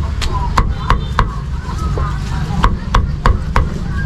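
Meat cleaver chopping braised pork on a thick wooden chopping block: about ten sharp chops, two or three a second, over a steady low hum.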